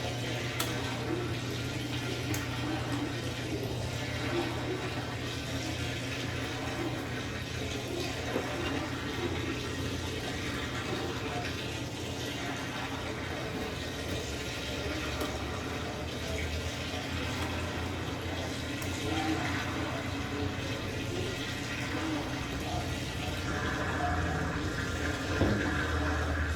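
Brastemp Total 7kg washing machine running with water rushing through it over a steady low hum, with a slow rise and fall about every four seconds. The water sound gets louder in the last few seconds.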